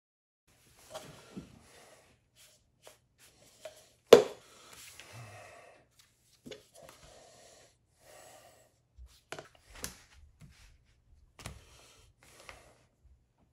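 Hands handling a cardboard coffee cup sleeve and a sheet of leather on a cutting mat: scattered rustles, slides and light taps, with one sharp knock about four seconds in, the loudest sound.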